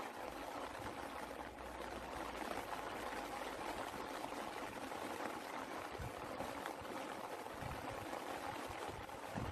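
Steady rain falling: an even hiss made of countless fine drop impacts.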